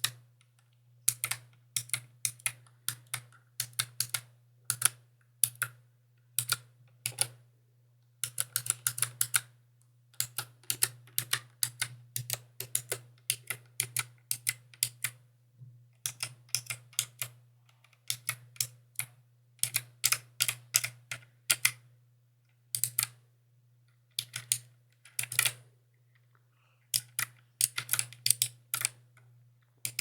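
Mechanical keyboard keys clacking in quick irregular runs of typing, broken by short pauses of about a second. A faint steady low hum sits underneath.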